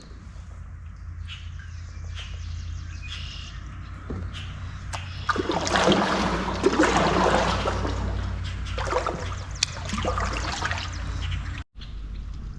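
Water trickling and splashing around a kayak as it is paddled, louder for about five seconds midway, with small birds chirping.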